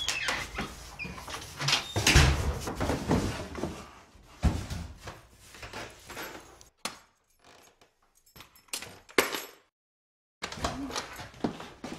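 A front door being opened and shut with a loud knock about two seconds in, amid a run of clicks and knocks. After that come scattered lighter knocks and handling sounds.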